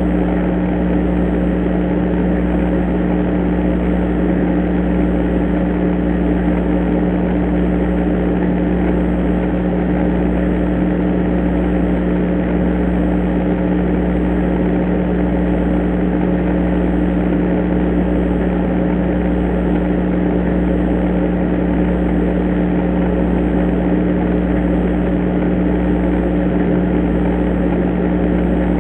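Steady electrical hum and hiss from a Foscam indoor IP camera's microphone feed in an empty room, unchanging throughout, with no knocks or taps.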